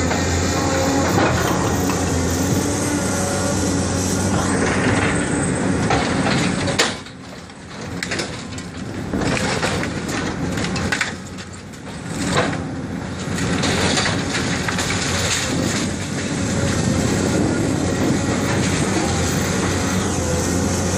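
Diesel engine of a Caterpillar 328D hydraulic excavator running steadily while its grapple tears into a building, with wood and debris crunching and cracking. From about seven seconds in, the engine noise falls back for several seconds and sharp cracks and snaps of splintering material stand out. The steady engine sound returns near the end.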